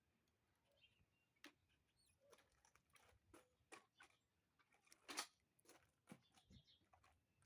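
Near silence broken by faint, scattered clicks and taps, the loudest about five seconds in.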